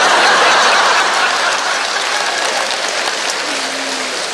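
Large audience applauding a punchline: a dense wash of clapping, loudest at the start and then steady.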